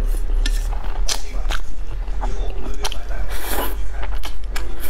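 Close-miked eating of instant noodles: slurping and wet chewing with sharp mouth clicks and smacks, and a longer slurp about three and a half seconds in and another at the end.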